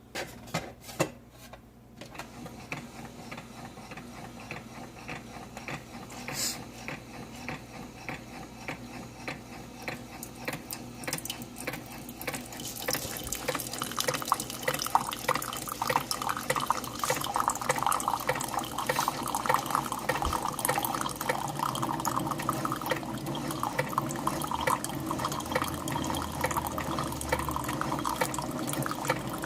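Keurig 2.0 coffee brewer brewing through an ekobrew reusable K-cup: hot water runs through and coffee streams and drips into the mug, getting louder about twelve seconds in. A few clicks at the start.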